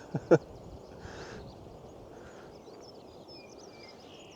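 Faint birdsong: thin, high chirps and warbles repeated over quiet open-air mountain ambience.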